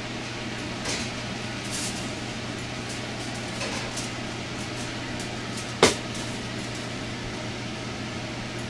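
Steady low kitchen hum, with a few light clicks and one sharp knock about six seconds in, as an oven is opened and a foil-covered baking tray of braised beef short ribs is taken out and set on the counter.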